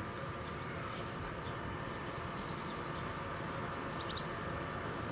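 Birds chirping briefly a few times over a steady low rumble and a faint steady high hum.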